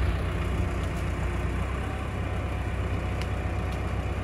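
Case tractor's diesel engine running steadily at a low idle, with a couple of faint clicks about three seconds in.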